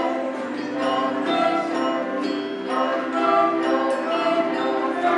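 An ensemble of electronic keyboards playing an instrumental piece together, with several notes held at once and new notes struck in a steady flow.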